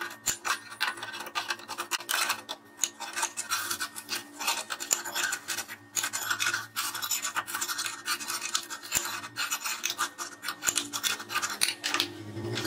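Adjustable wrench working a rusted nut loose on the steel vise jaw of a chop saw: rapid, irregular metal-on-metal scraping and clicking as the wrench turns and is re-gripped on the nut.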